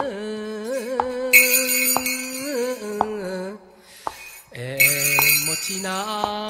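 Japanese folk song of the packhorse drivers (magouta), sung solo in long-drawn notes with wavering ornaments. A soft click marks time about once a second, with short bursts of jingling. The voice breaks off for a breath about three and a half seconds in, then picks up again.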